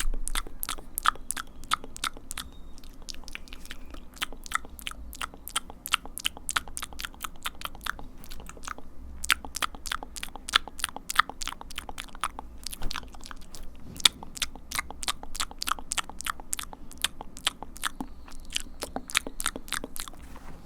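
ASMR mouth sounds made close to the microphone: a rapid string of mouth clicks and smacks, about four or five a second, broken by a few short pauses.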